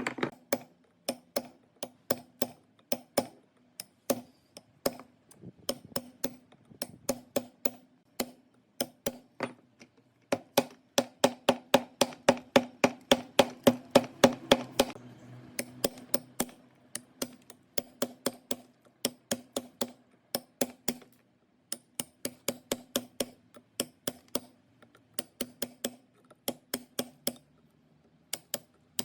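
Repeated sharp metallic taps, about two to three a second in runs with short pauses, over a faint steady hum. The strokes come fastest and loudest from about ten to fifteen seconds in.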